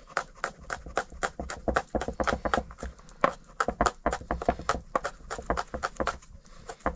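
A rapid, slightly uneven run of sharp knocks, about four to five a second, continuing throughout.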